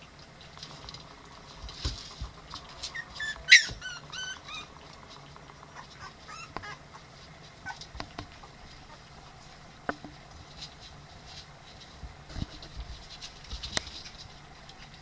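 Ryukyu dog puppies playing rough together: a short run of high squealing yelps about three seconds in, among scattered knocks and scrabbling of paws on the floor of their box.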